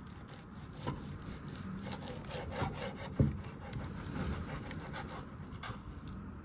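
Knife sawing back and forth through raw chicken thigh on a wooden chopping board, a run of soft scraping strokes, with a sharp knock about three seconds in.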